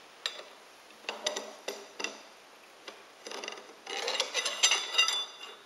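Steel drawbar being fed down through a milling machine's spindle: separate metal clinks with a light ring, then a busier run of scraping and rattling metal-on-metal contacts from about three seconds in.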